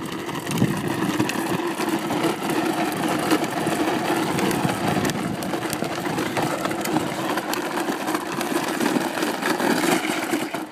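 Wheels of a Green Machine ride-on drift trike rolling over rough asphalt, a steady grinding rumble.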